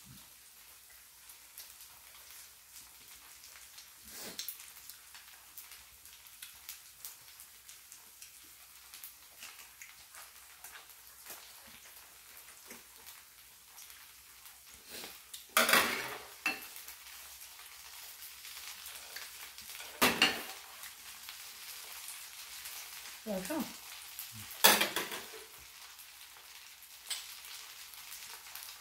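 Squid and scallion pancake batter sizzling steadily on an electric tabletop griddle, with three loud, sharp clatters of tableware in the second half.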